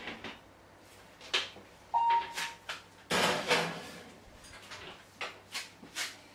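Glass baking dish set into a wall oven and slid onto the metal rack, then the oven door swung shut: a run of clicks and knocks, with a longer scraping clatter about three seconds in. A short electronic beep sounds about two seconds in.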